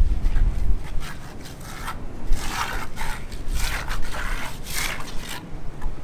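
Hand trowel scraping across a concrete slab in several short strokes while spreading a wet coating, with a low rumble at the start.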